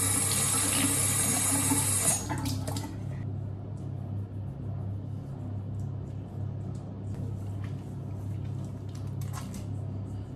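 Tap water running into a bathroom sink, shut off suddenly about two seconds in. Then soft wet rubbing and small splashes as foaming face wash is worked over the face, over a steady low hum.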